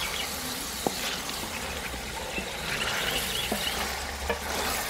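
Mixed vegetables frying in a metal pot with a steady sizzle, a wooden spatula stirring them and knocking against the pot a few times. It is the frying stage of a vegetable pulao, before the rice is added.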